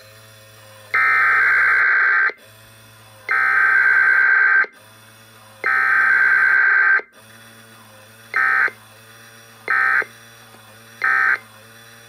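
SAGE 1822 EAS ENDEC sending a Required Weekly Test through its speaker: three roughly one-second bursts of warbling SAME header data tones, then three short end-of-message bursts, over a low steady hum.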